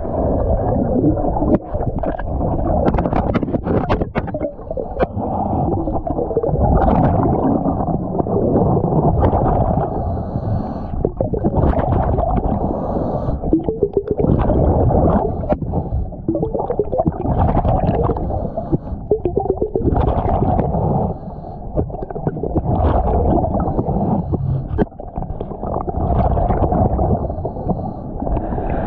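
A diver's regulator heard underwater: breaths with exhaled bubbles gurgling, swelling and falling every few seconds.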